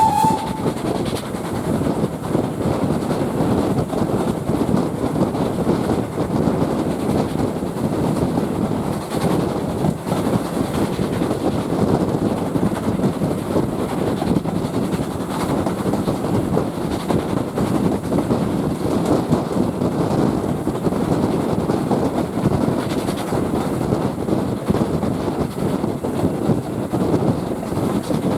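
Steam-hauled heritage train running along the track with a steady rumble, the tail of its rising whistle fading out at the very start.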